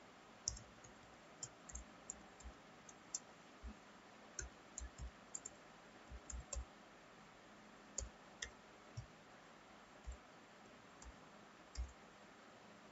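Computer keyboard being typed on: faint, irregular key clicks, one to three a second, over a low steady hiss.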